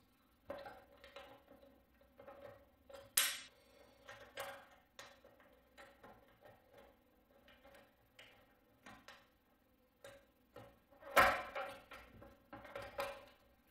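Light, scattered clicks and ticks of a hex key and hands working the blade-guard screw on a sliding mitre saw, loosening it for a blade change. There is a sharper click about three seconds in and a louder knock near the end.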